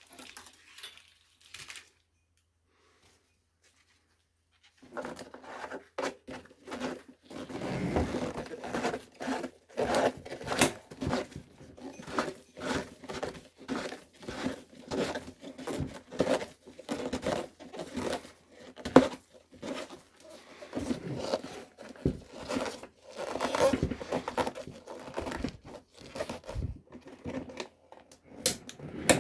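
Close-up handling noise: irregular rustling, crinkling and tearing with many light clicks, starting about five seconds in and going on almost without a break.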